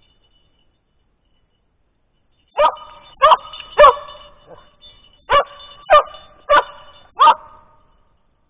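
Border collie barking: after about two and a half seconds of quiet, a run of three barks, then a run of four, roughly one every half-second. This is a search-and-rescue dog's bark alert, given at the hidden person she has found.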